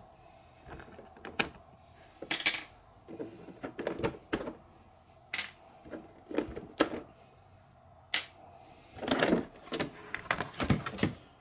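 Handling noises from an RC rock crawler's plastic body shell being unclipped and lifted off its chassis: irregular sharp clicks and short plastic rattles and scrapes as the body clips are pulled and the shell comes free.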